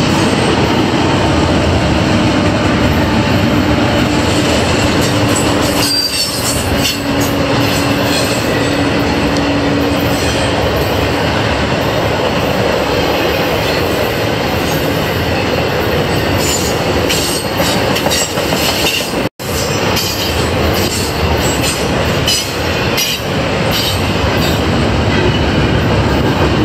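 Norfolk Southern intermodal train of stack and trailer cars rolling past: steady rumble of steel wheels on rail with clickety-clack, and a faint steady wheel squeal over the first half. The sound drops out briefly once, about two-thirds of the way through.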